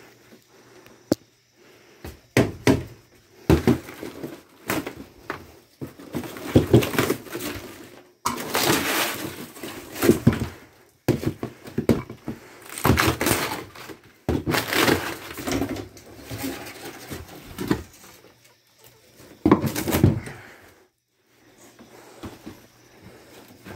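Camper wall paneling and wooden framing being torn out by hand: wood cracking, breaking and crunching in irregular bursts of a second or two, with sharp knocks between them. It goes quiet about three seconds before the end.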